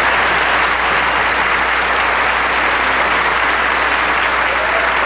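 Large audience applauding steadily, a sustained welcoming ovation for a performer who has just been introduced.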